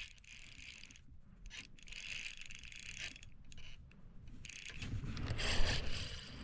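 Spinning reel's drag clicking in a rapid ratchet as a hooked golden perch pulls line off against a drag that has been backed off. A louder, lower rumble of handling noise comes in near the end.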